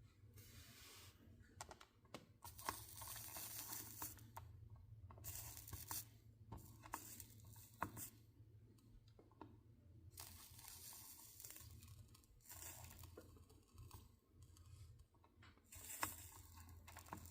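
Soldering iron melting solder along stained-glass seams, with faint crackling sizzles in stretches of one to two seconds, broken by short pauses and small ticks, over a low steady hum.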